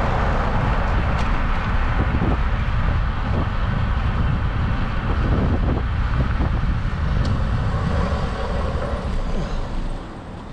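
Wind buffeting a GoPro action camera's microphone while cycling, with road traffic passing. The noise drops off sharply near the end.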